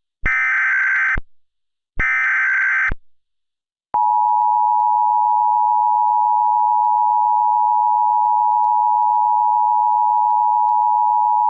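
Emergency Alert System broadcast tones: two short digital data bursts of the EAS header, about a second each, close a set of three. Then, from about four seconds in, comes the steady two-tone EAS attention signal that precedes an alert message.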